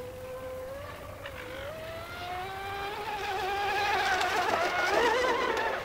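Radio-controlled model boat's motor running at speed across the water, a high whine whose pitch climbs over the first few seconds and wavers as it grows louder, then drops away sharply near the end.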